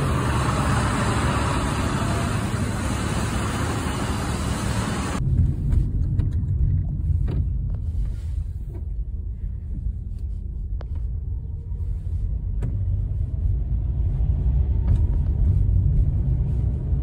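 A Mack roll-off truck passing with its diesel engine running amid traffic noise. About five seconds in this changes abruptly to a steady low engine and road rumble heard inside a moving car's cabin, with a few faint clicks.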